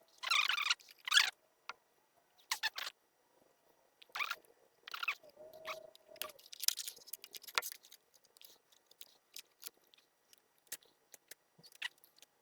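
Bench handling noises: irregular short rustles, scrapes and clicks of hands working parts and wiring, with one short squeak about halfway through.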